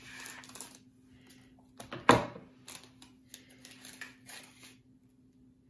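Scissors snipping open a plastic candy packet, then the wrapper crinkling as it is pulled open by hand, with one sharp snip about two seconds in.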